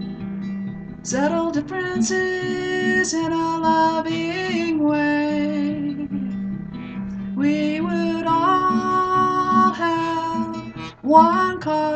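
A woman singing with long held notes over a strummed acoustic guitar, in two sung phrases with a short guitar-only gap between them.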